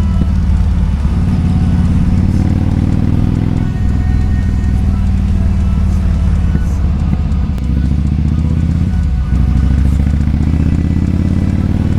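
Kawasaki Vulcan 2000's big V-twin engine running hard. Its pitch climbs, falls away sharply about four seconds in and again about nine seconds in, then climbs again.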